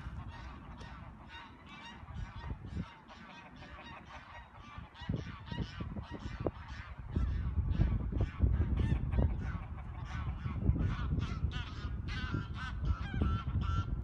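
Geese honking in a busy, overlapping run of short calls, thinning out for a few seconds near the start and growing denser from about halfway, with a low rumble underneath.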